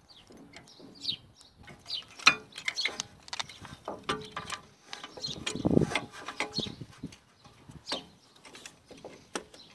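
Scattered metallic clicks and knocks as a steel C-clamp is fitted over a car's rear brake caliper and pads, with a louder clunk about halfway through.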